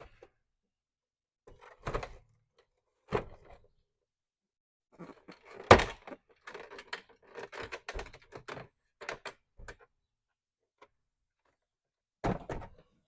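Knocks, clicks and thunks of the old master window switch being pried and worked loose from the door-panel trim: separate knocks, one loudest thunk about six seconds in, a run of small clicks and knocks after it, and another thump near the end.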